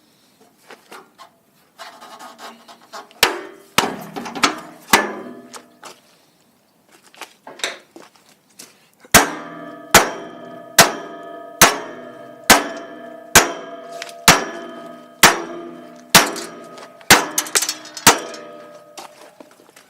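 Hammer blows ringing on the metal frame of a Honda EM3800SX generator: a few scattered blows at first, then a steady run of about a dozen loud strikes, roughly one a second, in the second half.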